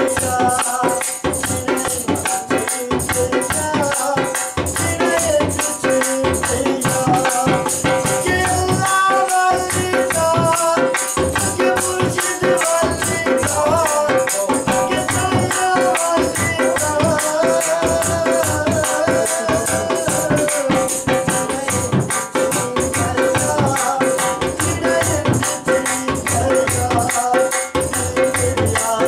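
A man singing a Sufi devotional folk song to harmonium and dhol, over a steady rattling shaker-like percussion beat and a held harmonium note.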